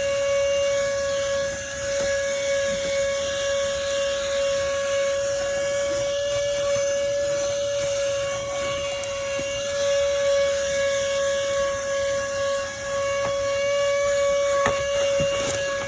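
Tzumi IonVac cordless handheld vacuum running steadily, its motor giving a constant high whine over the rush of suction. A few light clicks and knocks come near the end.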